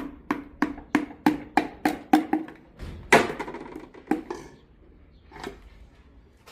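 Rhythmic tapping on an engine part during repair, about three sharp, slightly ringing strikes a second. It stops about two and a half seconds in, followed by one louder knock and a few scattered lighter knocks.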